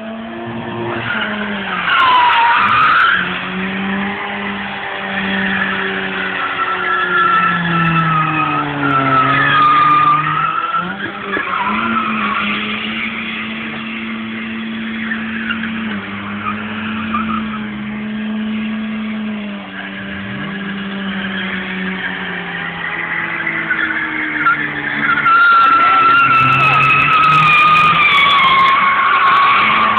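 Car drifting: tyres squealing in long, wavering screeches over an engine whose revs rise and fall. The squeal is loudest about two seconds in, around ten seconds, and again from about twenty-five seconds in.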